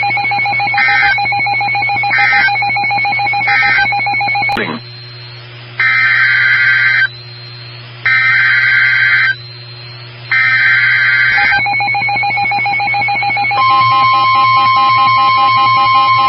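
NOAA Weather Radio alert signalling. First a steady buzzing tone with a short beep about every 1.3 seconds. Then three warbling digital SAME header bursts, each about a second long with a second of quiet between them. Near the end the steady 1050 Hz warning alert tone starts, announcing a new warning.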